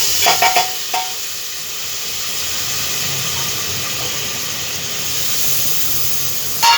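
Ground tomato hitting hot oil and fried masala in a pressure cooker, sizzling loudly with a steady hiss. A few metal clinks ring out in the first second, and the sizzle drops away suddenly after a short clatter near the end.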